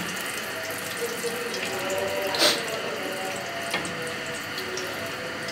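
Curry leaves and round red chillies sizzling in hot oil in a steel frying pan over a high gas flame: a steady frying hiss, the tempering (tarka) for the dal. A short, sharper burst about two and a half seconds in.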